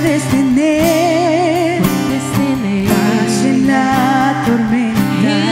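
Live Christian song: a woman singing held notes with vibrato, without clear words, over an acoustic guitar.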